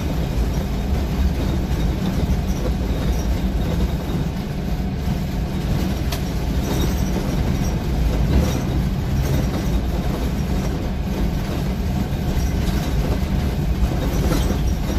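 Steady running noise heard inside a bus cabin while driving: the engine's low drone mixed with tyres rolling over a packed-snow road, with a couple of faint clicks.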